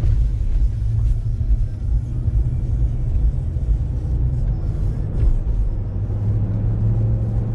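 Pickup truck driving, a steady low rumble of engine and road noise.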